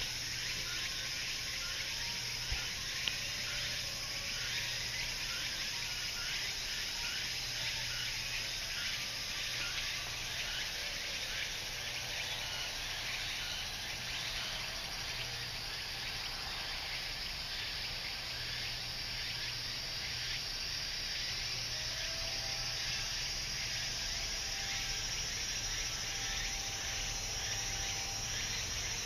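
Steady, high buzzing chorus of summer insects in woodland. The thin whine of mosquitoes flying close to the microphone comes and goes in the second half.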